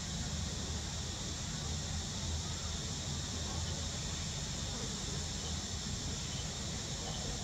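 Steady, high-pitched insect drone of the surrounding forest, with a low rumbling noise underneath.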